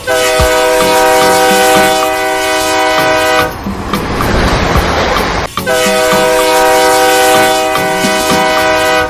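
Battery-powered toy steam locomotive's electronic sound effects: a loud, steady-pitched whistle held for about three and a half seconds, a hiss of simulated steam for about two seconds, then the whistle again.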